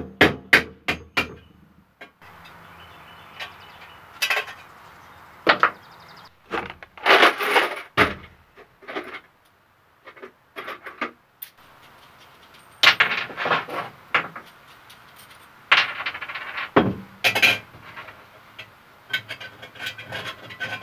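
Irregular metallic clicks, clinks and knocks from a steel electrical junction box worked by hand: a screwdriver working out the knockouts, then steel conduit fittings and locknuts rattling in a plastic jar and being fitted into the knockout holes.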